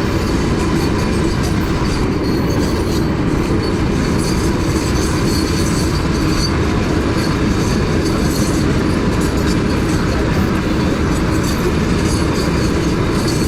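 Steady, loud rumbling noise of a moving vehicle in travel, even throughout.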